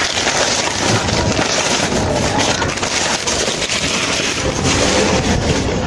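Newspaper wrapping crinkling and rustling as it is pulled open and stripped off a tissue-wrapped potted-plant root ball, a dense crackle with many small crisp snaps.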